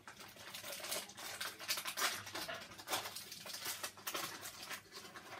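Plastic snack packaging crinkling and rustling in irregular crackles as a packet of wafer rolls is worked open by hand.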